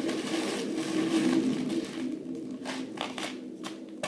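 Plastic bubble wrap rustling and crinkling as it is handled and pulled off a package, a continuous rustle giving way to scattered crackles about halfway through, over a low steady hum.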